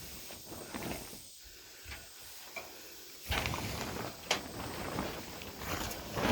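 Rope and metal rigging hardware being handled: scattered small clicks, then from about halfway a louder rustling with a sharp click.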